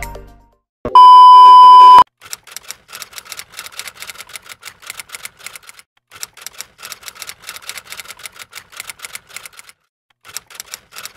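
A loud steady electronic beep lasting about a second, then a typing sound effect: rapid key clicks in runs with brief pauses, going on for most of the rest of the time.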